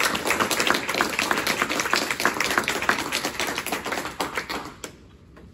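Audience clapping, with many distinct claps, fading out near the end.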